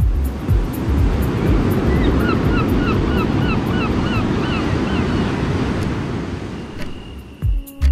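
Ocean surf washing and breaking on the shore. From about two seconds in, a bird calls in a quick run of short repeated notes for a few seconds. The surf fades away near the end.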